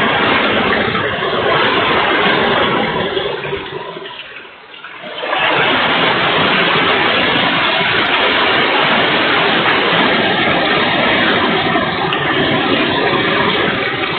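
Torrential typhoon rain and wind, a loud, dense, steady rush. It eases off around four to five seconds in, then surges back and holds steady.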